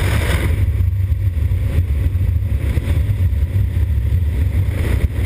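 Honda Africa Twin motorcycle's parallel-twin engine running steadily under way at road speed, a constant low rumble mixed with wind noise on the microphone.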